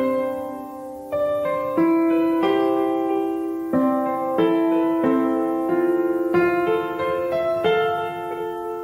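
Background piano music: gentle notes and chords struck one after another, each ringing and fading before the next.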